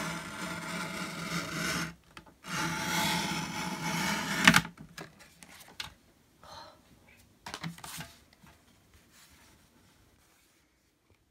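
Sliding rail paper trimmer cutting paper: the cutter head is drawn along the rail in two long strokes, the second ending in a sharp click. A few fainter paper rustles follow as the cut-off strip is lifted away.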